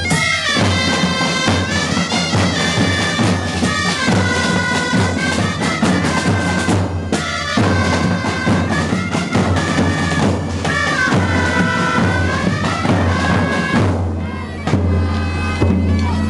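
Live dance music from reedy wind instruments playing a melody over drums, with short breaks between phrases.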